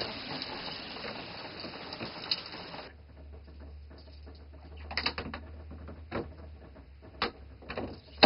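A key scraping and clicking in a door lock that will not open, the lock having been changed, at first under a steady hiss of rain. About three seconds in the rain hiss drops away, leaving a low hum and a few sharp metallic clicks of the key working the lock.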